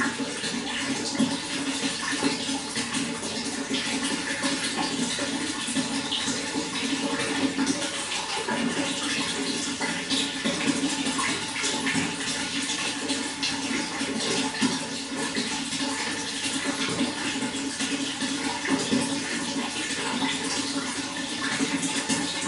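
Running water: a steady, unbroken rushing flow with constant splashing and trickling.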